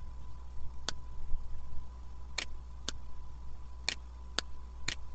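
Six sharp computer-mouse clicks, single and spaced, the last four falling in two pairs about half a second apart, over a steady low electrical hum.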